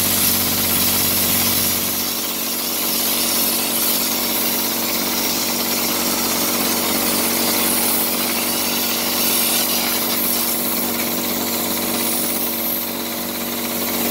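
Spray rig running steadily as Chamberguard coating is sprayed from a hose-fed spray gun: a constant motor drone with a high hiss over it.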